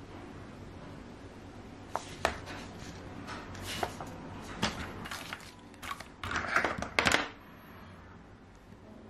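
Hands handling a mechanical keyboard: scattered sharp clicks and knocks, with short bursts of rustling, the longest about six to seven seconds in.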